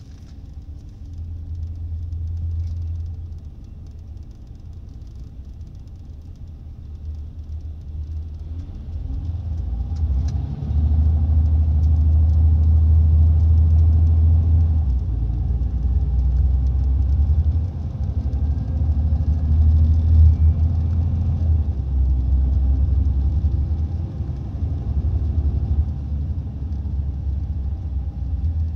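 Scania L94IB city bus diesel engine and ZF Ecomat automatic gearbox heard from inside the bus, a deep rumble that grows much louder about a third of the way in as the bus pulls hard, then dips and rises again a few times, with a faint rising whine partway through.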